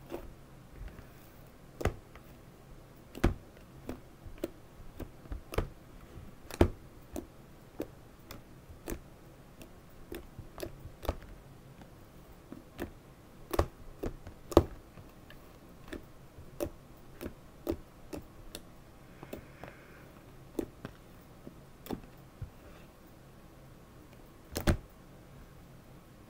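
Fluffy slime made with glue and shaving cream being kneaded and stretched by hand in a plastic tub, giving irregular sharp clicks and pops, roughly one to two a second.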